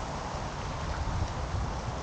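Outdoor ambience: a steady hiss with an uneven low rumble of wind buffeting the microphone.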